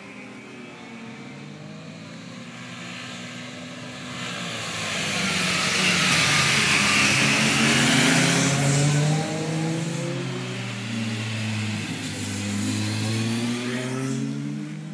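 Motorcycle engines approaching and passing up close, the pitch rising and falling with throttle and gear changes. They grow louder to a peak about halfway through as one bike goes by, drop off, then swell again as another follows near the end.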